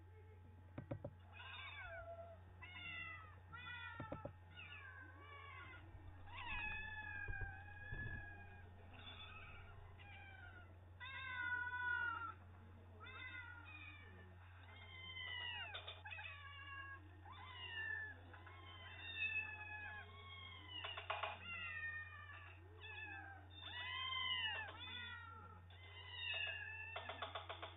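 Cats meowing in a cat video played back through a small speaker: many short meows, one after another, rising and falling in pitch, over a steady low hum, with a buzzy rattle near the end.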